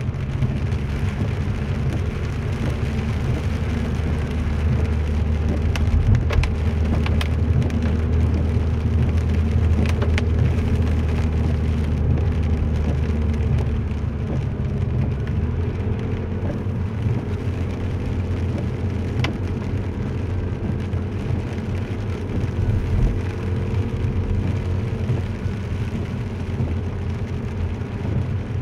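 Car driving on a wet road, heard from inside the cabin: steady engine drone and tyre hiss on the wet surface, with a few sharp ticks and taps. The low drone eases about halfway through.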